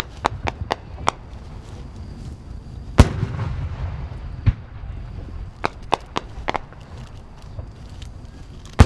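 Aerial fireworks shells bursting: a scatter of sharp bangs, the loudest about three seconds in and again near the end, each loud one followed by a rolling echo.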